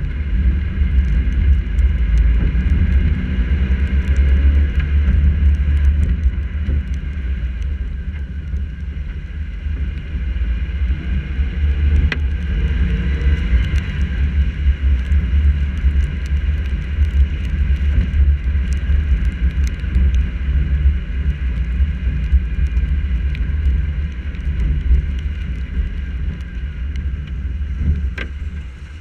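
A car driving on wet streets, heard through a GoPro mounted on its hood: a heavy, steady low rumble of engine, tyre and wind noise, with scattered small ticks of raindrops striking the camera case. The rumble drops off near the end.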